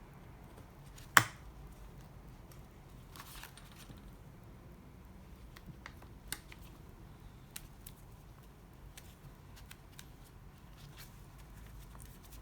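Hands folding and pressing paper during bookbinding: one sharp click about a second in, then a short rustle and scattered light clicks.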